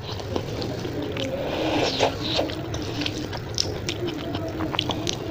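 Close-miked eating of Maggi instant noodles: wet slurping and chewing with many short, irregular mouth clicks and smacks.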